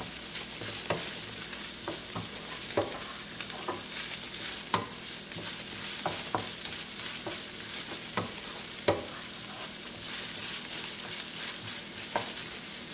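Chopped onions sizzling in oil in a stainless steel pan, being sautéed over raised heat to brown. A wooden spatula stirs them, scraping and knocking against the pan at irregular intervals over the steady sizzle.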